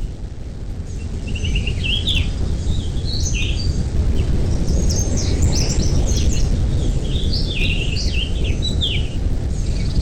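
Bird calls: many short, high chirps in quick runs, over a steady low rumble.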